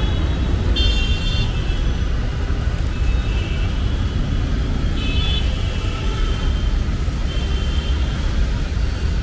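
Road traffic on a busy city street: a steady low rumble of passing vehicles, with short high-pitched tones breaking in a few times.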